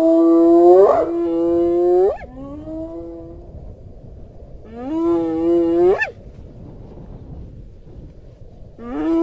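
Spotted hyena whooping: long calls a few seconds apart, each rising from low, holding a steady pitch, then sweeping sharply upward at its end. A fainter whoop follows the first, and another begins near the end.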